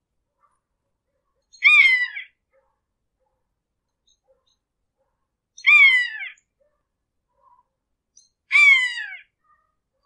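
A hawk screeching three times, a few seconds apart; each call is short and harsh and falls in pitch at its end.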